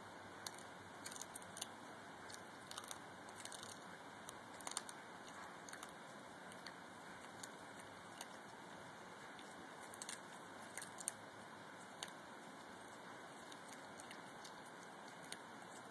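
A cat chewing a whole mouse: irregular sharp crunches and clicks in scattered clusters, over a faint steady hiss.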